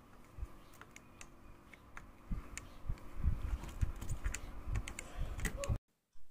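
Irregular light clicks and low knocks of a soldering iron tip and fingers working a circuit board while a PTC thermistor is desoldered. The clicks grow busier about two seconds in and cut off suddenly near the end.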